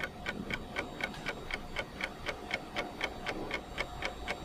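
Steady clock ticking, about four even ticks a second.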